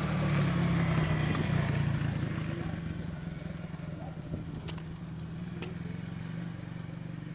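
A youth ATV's small engine running at a steady speed, loud at first and fading as the quad drives away.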